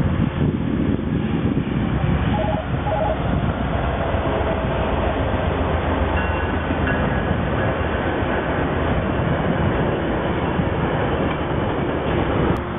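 VIA Rail stainless-steel passenger cars rolling past: the steady rumble of train wheels on the rails, with faint high ringing tones at times. The sound drops near the end as the last car goes by.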